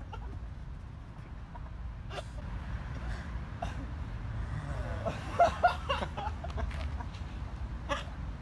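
A low steady rumble with a few sharp knocks, and short bursts of voices and laughter around five to six seconds in, where the two loudest knocks fall.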